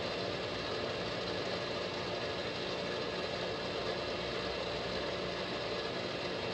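Clausing 15-inch by 50-inch lathe running at a constant speed, an even, steady mechanical hum with no change.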